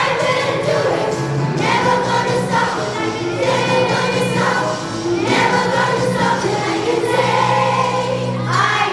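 A choir of voices singing a song to musical accompaniment, in sustained phrases.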